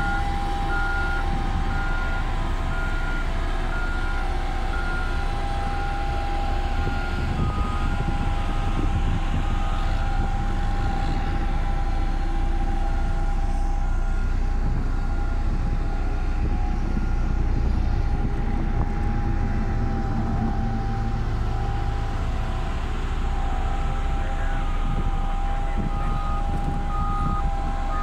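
Caterpillar single-drum roller compactor's diesel engine running steadily as it drives over the coal stockpile base. A reversing alarm beeps in an even, repeating pattern for the first ten seconds or so and starts again near the end.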